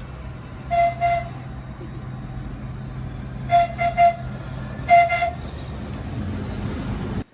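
Train horn giving a series of short single-note toots: two about a second in, three quick ones about three and a half seconds in, then a final pair around five seconds, all over a steady low rumble. The sound cuts off suddenly near the end.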